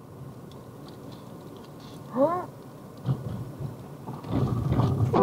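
Car driving on a wet, slushy road, recorded from inside by the dashcam: steady tyre hiss and low rumble that grows louder near the end. A brief pitched sound comes about two seconds in.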